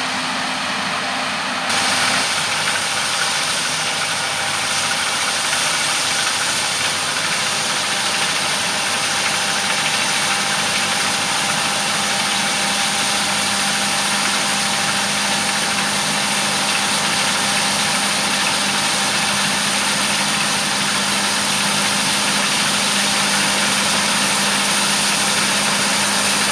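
Heavy farm machinery running steadily: a dense, constant mechanical hiss with a steady engine hum underneath. It steps up louder about two seconds in.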